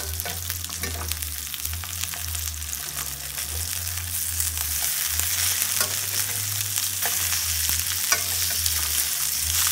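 Salmon burger patties sizzling in hot olive oil in a stainless steel skillet as they are flipped one at a time with a metal slotted spatula, with scattered scrapes and taps of the spatula on the pan. The sizzle grows gradually louder as the patties are turned.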